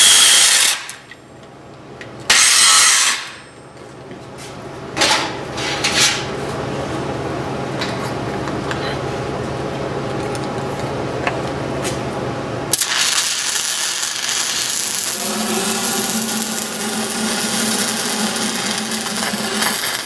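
Angle grinder working the root bead of a steel pipe weld, grinding out a spot where the gap was lost so the weld gets penetration. It starts with two short bursts of grinding, then runs on in a long steady grind whose sound changes about two thirds of the way through.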